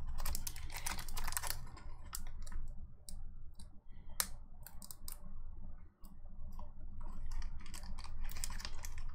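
Foil Pokémon booster pack wrapper crinkling and being torn open by hand, in bunches of sharp crackles, loudest in the first second and a half and again near the end. A steady low hum runs underneath.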